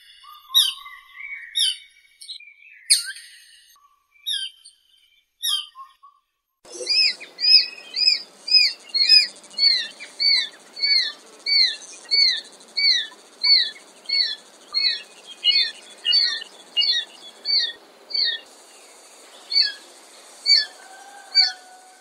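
Chinese sparrowhawk calling: a few scattered short high notes, then a long run of short high call notes repeated about two a second, thinning out near the end.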